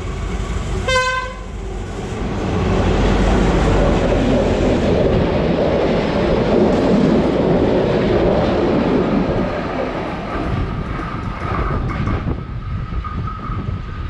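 A diesel locomotive sounds one short horn blast about a second in. Then the train runs past close by, with a loud rumble and the clatter of wheels on the rails, easing off as the last wagons go by.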